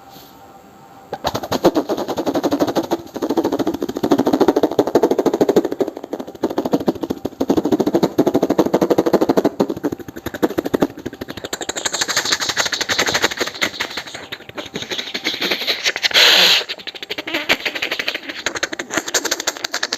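Vocal mimicry of a helicopter: a rapid, even chopping pulse like rotor blades, starting about a second in. About sixteen seconds in there is a short, loud hissing burst.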